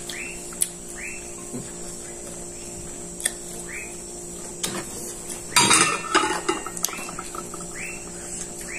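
A metal spoon clinking and scraping against ceramic plates and bowls, with single clinks early on and a louder clatter of dishes about two-thirds of the way through.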